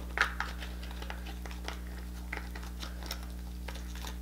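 Soft, scattered wet clicks and crackles of king crab leg meat being handled and eaten, over a steady low electrical hum.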